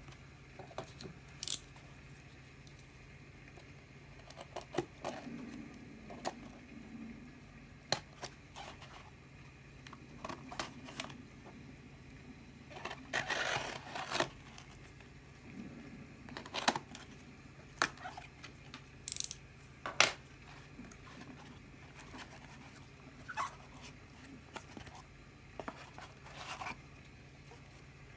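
Packaging being handled and opened: scattered sharp clicks and taps, with a longer crinkling, tearing rustle about halfway through.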